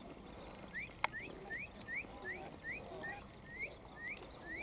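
A bird calling a rapid series of short rising notes, about three a second, with a sharp click about a second in.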